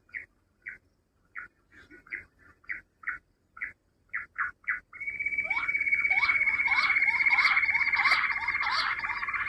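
Quail calling: short separate call notes about two a second, then about halfway through a louder, denser run of overlapping downward-sliding calls over a steady high note.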